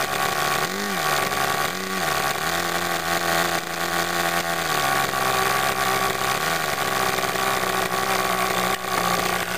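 O.S. 46 AX two-stroke model-airplane glow engine, fitted with a muffler, running at idle. Its speed picks up briefly twice near the start, holds a little higher for a couple of seconds in the middle, then settles back to a steady idle.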